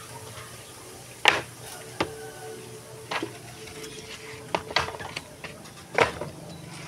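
Wooden planks knocking and clattering as they are picked up, shifted and laid down: six or so sharp knocks at uneven intervals, the loudest about a second in, over a faint steady hum.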